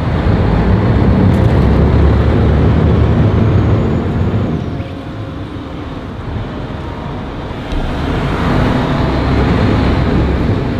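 Tugboat engine running hard with a heavy low rumble, easing off about four seconds in and building again near the eight-second mark.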